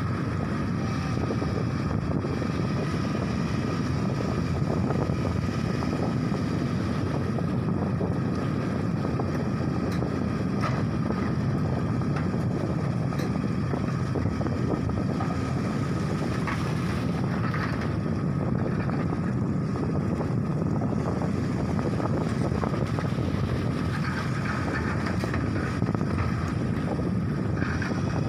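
Heavy diesel engine running steadily, a constant low rumble with a thin steady whine above it.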